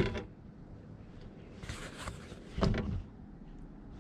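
A man's sharp exhale, then a short groan about a second later, in frustration at a bass that has just come off the hook.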